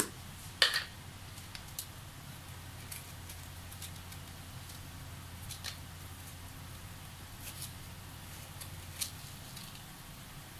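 Soup boiling hard in an aluminium pot on a gas burner: irregular small pops and splutters of bubbles over a steady low hum. One sharper pop comes about a second in.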